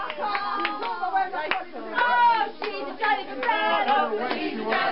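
A few people clapping their hands, irregular single claps rather than dense applause, with high, excited voices calling out over them.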